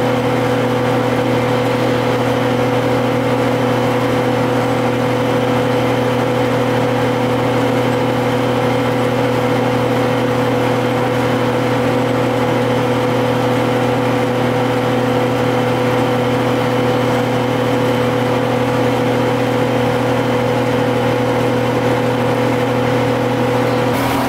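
GM TDH-5303 bus's diesel engine and drivetrain running at a steady speed: a constant drone with a steady whine over road noise, holding the same pitch throughout. The whine cuts off just before the end.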